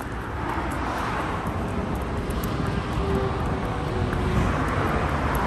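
Road traffic on an overpass: a steady low rumble, with the whoosh of passing vehicles swelling and fading.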